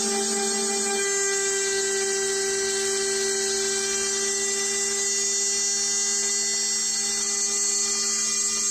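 Homemade CNC milling machine running: a steady high-pitched electric motor whine with a constant hum beneath, the lower part of which drops away about a second in.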